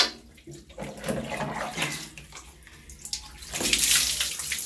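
Water splashing and running over a dog as it is washed and rinsed, with a louder rush of water for about a second near the end.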